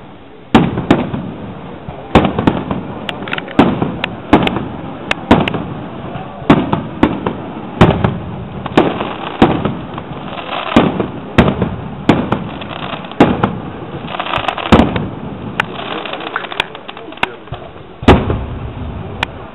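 Fireworks display: aerial shells bursting in a rapid, irregular run of loud bangs, about one or two a second, each dying away, with stretches of crackle between them.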